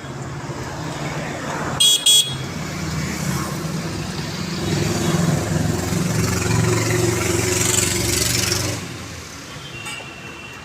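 Road traffic: vehicle engines running steadily, with a horn sounding two short toots about two seconds in. The engine noise grows louder in the middle and dies away about nine seconds in.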